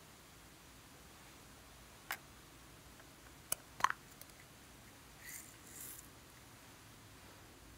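A few sharp clicks of small plastic caps and lids, the loudest as a glitter pot's lid snaps open a little under four seconds in. About a second later comes a soft hissy rattle of sequin glitter being tipped out onto slime.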